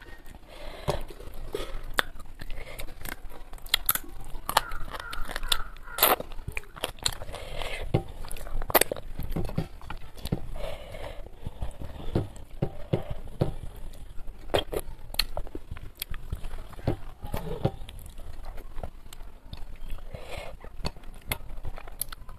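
A person eating fried fish with her fingers close to a clip-on microphone: chewing and mouth sounds with many small sharp clicks as the fish is picked apart and eaten.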